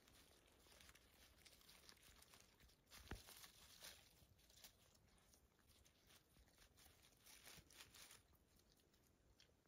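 German Shepherd dog gnawing on a chew, with faint, irregular crunches and clicks and soft crackles of dry leaves under it. The sharpest crunch comes about three seconds in.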